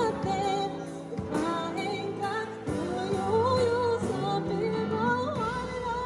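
Music: a song with a singer holding and gliding through a melody over instrumental accompaniment.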